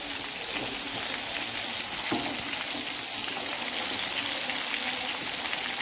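Chicken pieces frying in hot oil in a pan: a steady sizzle, with a light knock about two seconds in while the pieces are being turned.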